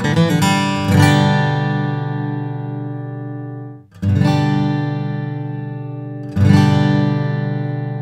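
Martin HD-28 short-scale dreadnought acoustic guitar, rosewood back and sides with a spruce top, played fingerstyle. A quick run of picked notes gives way to chords struck about a second, four seconds and six and a half seconds in. Each chord is left to ring and fade, and the first is damped just before the second.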